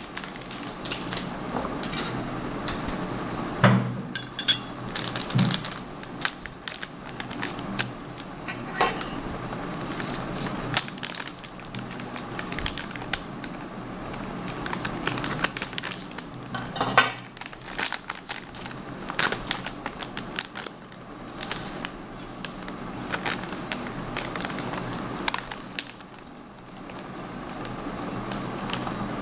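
A laminated plastic drink-powder packet being handled, crinkling and rustling, with repeated sharp snips of scissors cutting it open. Near the end a metal spoon clinks and scrapes in the packet as powder is scooped out.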